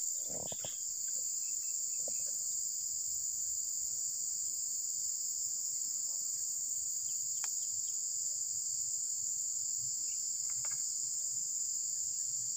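Steady, high-pitched insect chorus droning without a break, with a couple of faint clicks.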